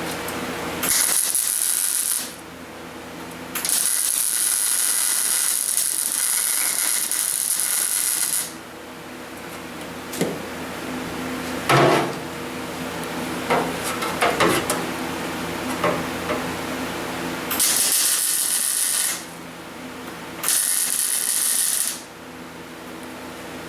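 Gas-shielded MIG welder laying short beads on a sheet-steel floor pan, four bursts of steady crackling hiss that start and stop abruptly. Between the second and third bursts come several sharp metallic knocks and taps, over a faint steady machine hum.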